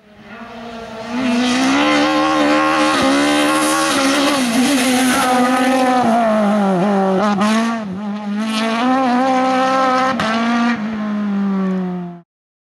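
Race car engine at high revs on a hill climb, its pitch dipping and climbing with the throttle and gear changes, with a few sharp cracks. It fades in over the first second and cuts off suddenly near the end.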